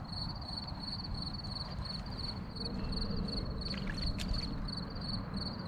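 Crickets chirping steadily, about three chirps a second, over a constant low outdoor rumble, with a few faint clicks about four seconds in.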